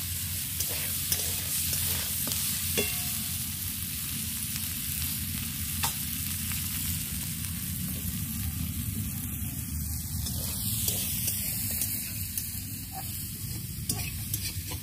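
Sliced onions sizzling as they fry in oil in a steel wok, stirred with a metal spatula, with occasional short clicks. The onions are being fried until reddish-brown.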